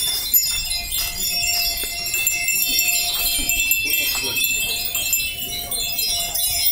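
Many Japanese glass wind bells (fūrin) tinkling together, a dense overlapping shimmer of high ringing notes.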